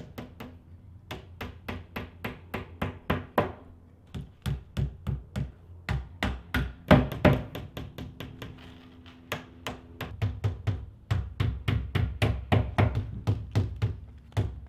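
Hammers tapping small nails through the thin back panel of a flat-pack wardrobe into its edges. The blows come in quick runs of several a second, with short pauses between runs.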